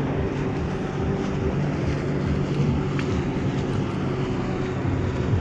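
Outboard motor of a Stabicraft 1450 boat running steadily under way, a low engine hum with a rush of wind and water noise over it.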